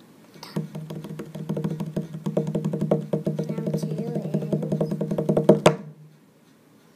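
An improvised drum roll: rapid hand taps drummed over a steady, low hummed note, ending in one sharp hit about five and a half seconds in.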